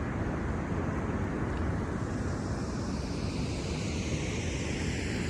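Wind buffeting the phone's microphone: a steady rushing noise with an uneven low rumble.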